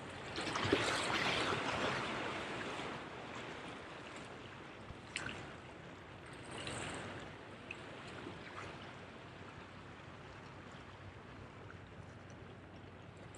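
Sea waves washing and splashing against the rocks of a jetty, surging about a second in and again around six to seven seconds, with a few faint clicks.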